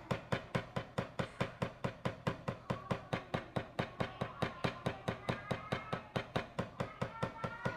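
Wooden drumstick striking a drum practice pad in steady, even strokes, about four or five a second, as a single-hand speed exercise.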